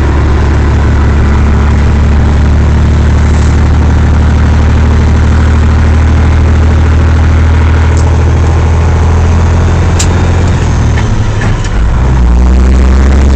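Semi truck's diesel engine running steadily, heard from inside the cab as a loud low drone. About eleven seconds in the engine note drops and then settles lower and a little louder, as at a gear change. A couple of faint clicks come through near the end.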